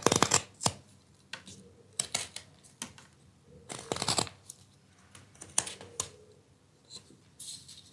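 Carving knife cutting into wood: an irregular string of small sharp clicks and brief scraping slices as the blade is pressed in and drawn through the grain.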